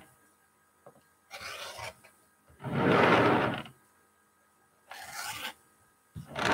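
Rotary cutter blade rasping through layers of cotton fabric on a cutting mat, trimming patchwork pieces: four separate strokes, the second and fourth the loudest.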